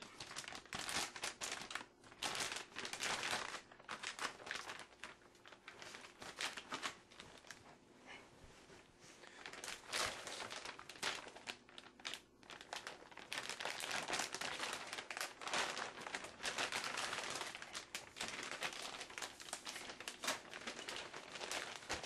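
Motherboard's anti-static plastic bag crinkling and crackling in irregular bursts as it is handled and opened.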